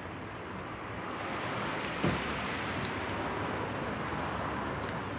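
Steady vehicle and traffic noise, with a single low thump about two seconds in.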